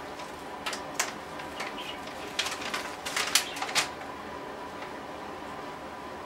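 A paper instruction sheet being unfolded and handled: a few crisp crackles and clicks about a second in and a cluster between two and four seconds, over a faint steady hum.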